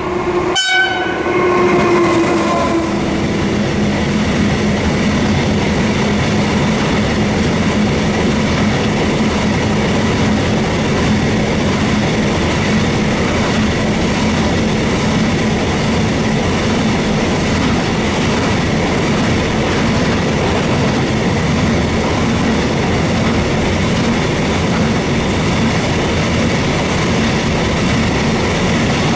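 Electric freight locomotive sounding its horn for the first couple of seconds, then a long train of open box wagons rolling past close by: a loud, steady rumble and clatter of wheels on the rails.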